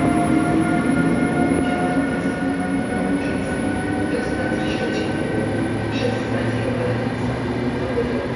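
A train running at a station: a steady rumble with a steady electric hum. A scatter of faint, short clicks comes in the second half.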